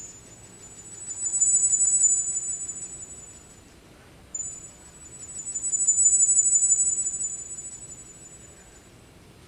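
Very high, thin electronic tone from a wind controller played through a Yamaha WT11 tone generator, swelling up and fading away twice; the second swell starts abruptly a little before halfway.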